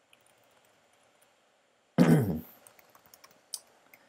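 Faint computer keyboard typing, a few soft key clicks. About two seconds in comes one short, loud voiced sound from a person, falling in pitch.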